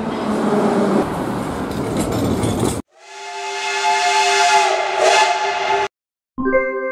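A train rushing past close by, cut off abruptly. A steam locomotive's whistle then blows a steady chord of several tones for about three seconds over a hiss of steam. Near the end a synthesized music jingle begins.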